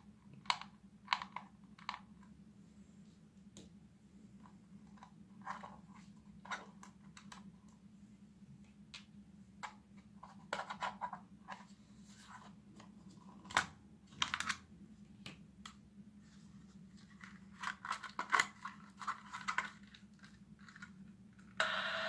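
Plastic toy walkie-talkie being handled, with scattered clicks and scrapes of its casing and battery cover. Near the end a loud steady static hiss with a tone cuts in: the walkie-talkie switching on, powered from a battery wired to it.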